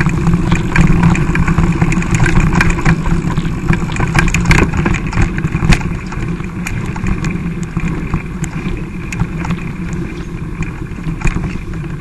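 Mountain bike on a rough dirt singletrack heard from an on-board camera: a steady low rumble of wind and rolling tyres with many sharp rattles and knocks from the bumps. The rattling thins out and the rumble eases a little after about halfway.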